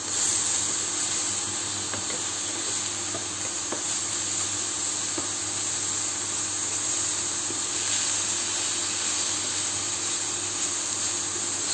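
Chicken breast pieces sizzling in a hot frying pan, a steady hiss, as they are turned with a wooden spatula, with a few faint taps of the spatula against the pan.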